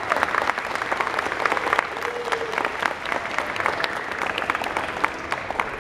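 A seated audience of schoolchildren and adults applauding: many hands clapping at once, with a few sharp single claps standing out.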